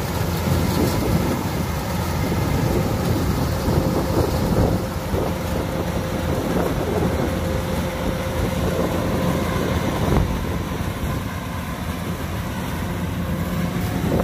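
Kubota DC105X combine harvester running steadily at work: a deep diesel rumble with a steady whine from its machinery over a dense mechanical noise.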